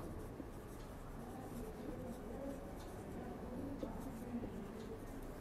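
Faint scratching of a marker pen on a whiteboard in short strokes as a line of handwriting is written.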